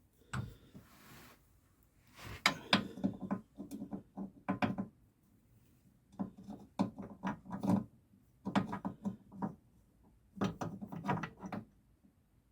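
Hand tools clicking and rattling on metal parts in about five short bursts of rapid clicks, with pauses between them.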